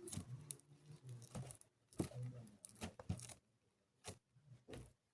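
Faint handling noises: scattered sharp clicks and crinkling crackles at irregular intervals.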